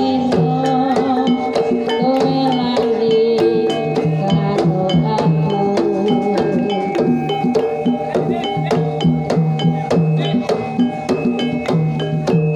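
Javanese Banyumasan gamelan playing a tayub piece. Kendang hand-drum strokes and bonang kettle gongs are struck in a quick, dense rhythm over bronze metallophones and gongs that ring on.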